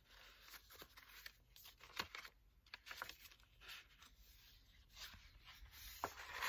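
Faint rustling of paper and card in a handmade junk journal as a journaling card is handled and a page is turned, with a few light taps, the sharpest about two seconds in and near the end.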